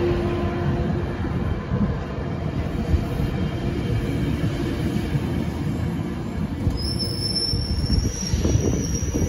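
Metrolink bilevel commuter coaches rolling past at low speed as the train departs, a steady low rumble of wheels on rail. About seven seconds in, a thin high steady squeal from the wheels starts and holds.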